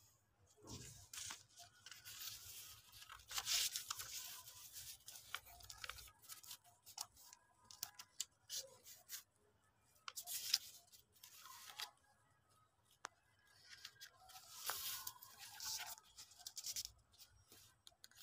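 Paper rustling and crinkling in irregular bursts as printed photo sheets and the pages of a clipped paper folder are handled and turned.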